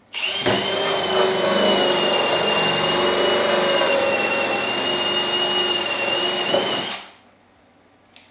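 Cordless drill running a 1¾-inch hole saw through the wall of a plastic sprayer tank: a steady cutting noise with a high whine for about seven seconds, then it stops suddenly.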